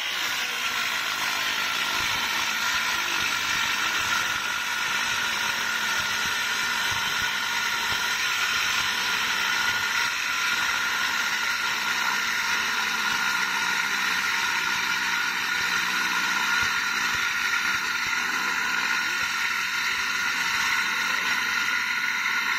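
Corded Makita circular saw running steadily under load, its blade cutting lengthwise along a wooden plank.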